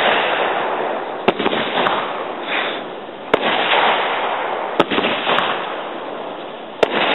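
Aerial fireworks bursting: about half a dozen sharp bangs a second or so apart over a continuous dense crackling from the exploding stars.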